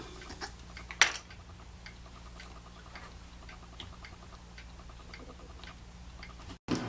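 Faint, even ticking about twice a second over a low steady hum, with one sharp click about a second in that is the loudest sound.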